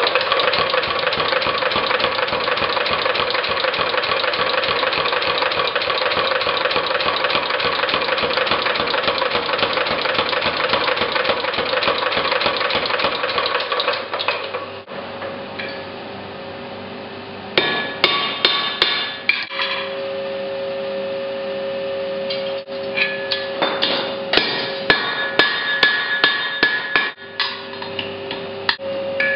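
A power hammer pounding hot iron in a fast, continuous run of blows for about fourteen seconds, over a steady mechanical hum. It then settles to the hum alone, broken by three short runs of separate, ringing hammer blows on metal.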